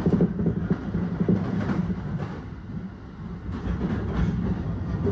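Running noise of an electric commuter train heard from inside the car: a steady low rumble of wheels on rail, with a few clacks scattered through it, easing briefly about halfway through.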